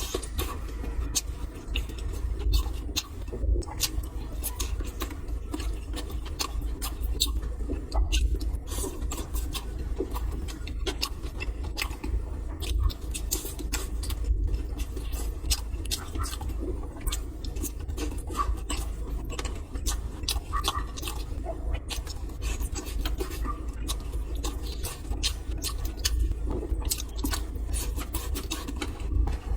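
Close-miked eating sounds of a person chewing steamed buns: irregular moist mouth clicks and chewing throughout, over a steady low rumble.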